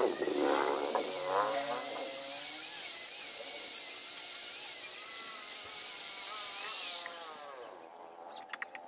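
Electric angle grinder running against a wooden table leg, its whine wavering in pitch as the disc bites into the wood. About seven seconds in it is switched off and winds down, followed by a few light clicks.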